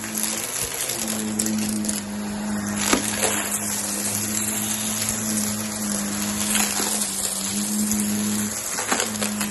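Upright vacuum cleaner running over a carpet rug: a steady motor hum with airflow hiss that sags briefly twice as it is pushed and pulled, and a few sharp clicks of debris being sucked up.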